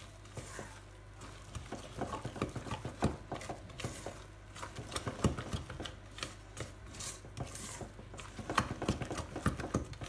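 Spatula stirring and folding thick cake batter in a mixing bowl, with irregular scrapes and taps against the bowl.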